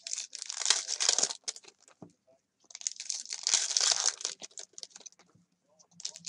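Trading card pack wrappers being torn open and crinkled by hand, in two long bursts of crackling with a third starting near the end.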